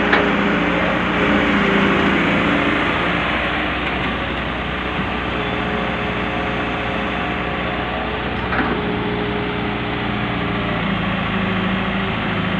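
John Deere 595D wheeled excavator's diesel engine running steadily as it works the boom and bucket, with a brief knock about two-thirds of the way through.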